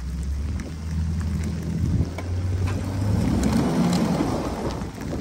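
Pickup truck engine revving under load as the truck is pulled on a tow strap out of deep snow, tyres spinning and churning snow; the engine note rises about three seconds in.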